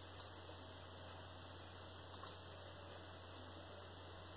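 Quiet room tone: a steady low hum and hiss, with a few soft clicks at the computer, one near the start and a quick pair about halfway.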